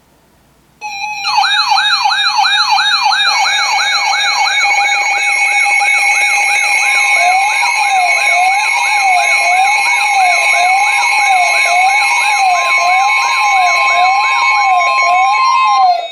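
Several electronic siren tones sounding together, starting suddenly about a second in. A fast wail sweeps up and down about twice a second over steady high tones. From about seven seconds a slower wail and a steady mid-pitched tone join in.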